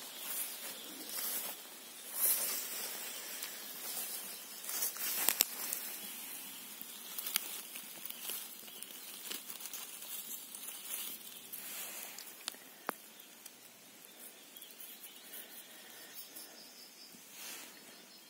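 Footsteps and rustling through tall grass and undergrowth, in repeated swishes during the first few seconds, with a few sharp snaps. Later the rustling is softer, as a hand parts the grass to pick a mushroom.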